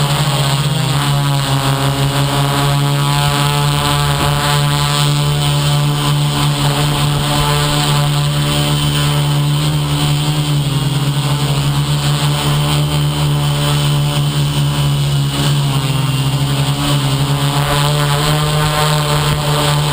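Electric motors and propellers of a small FPV radio-controlled aircraft running steadily in flight, a loud hum whose pitch shifts slightly now and then with the throttle.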